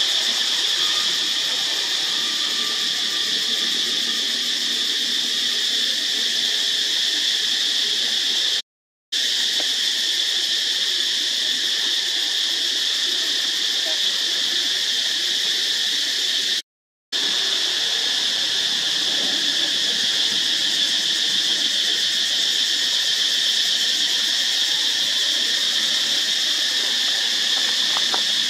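Steady high-pitched drone of insects in chorus, cutting out briefly twice.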